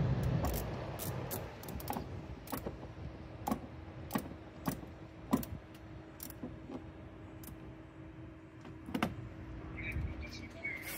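Hands handling a plastic compartment cover under the windscreen cowl, giving a series of sharp, irregular plastic clicks and knocks, about a dozen, over a faint steady hum.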